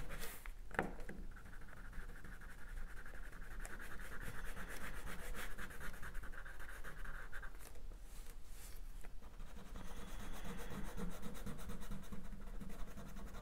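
Wax crayon scratching softly across drawing paper in quick, repeated colouring strokes.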